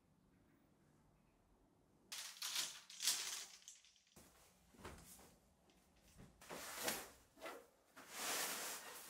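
Faint room tone, then from about two seconds in, fabric rustling in irregular bursts as sheer curtains and a duvet cover are handled and shaken out over a bed.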